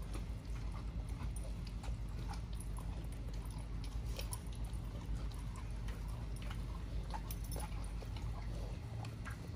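XL pitbulls chewing and crunching raw chicken, with many short, irregular crunching clicks over a steady low rumble.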